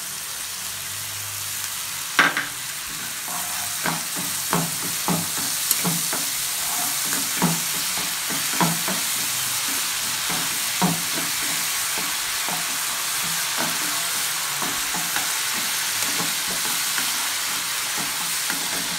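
Tomato-and-spice masala with freshly added sour yogurt sizzling in oil in a non-stick kadai, stirred with a spatula that knocks and scrapes against the pan irregularly. The first knock, about two seconds in, is the loudest. This is the masala being fried down (kashano).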